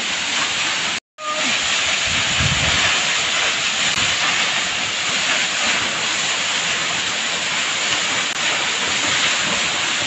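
Waterfall pouring down onto rocks close by: a loud, steady rush of falling water. The sound cuts out for a moment about a second in, then goes on.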